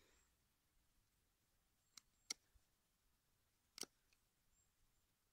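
Mostly quiet, with three sharp clicks about two to four seconds in, the second the loudest: a knife cutting into a wooden bow-drill hearth board to widen its notch.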